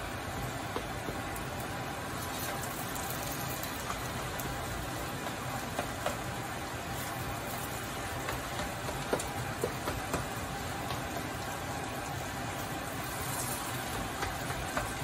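Diced potatoes frying in plenty of olive oil in a frying pan, a steady sizzle, with the taps and scrapes of a slotted spatula turning them against the pan, several sharper clicks from about nine seconds in.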